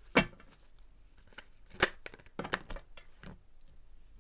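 Tarot cards being handled on a table: several sharp clicks and snaps as cards are slapped and tapped down, the loudest just after the start and another about two seconds in, followed by a quick cluster of smaller taps.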